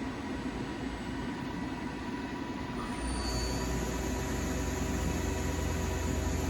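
Milltronics ML22 CNC lathe's steady machine hum with its spindle stopped, holding several steady tones. About three seconds in, a deeper low hum comes in and stays.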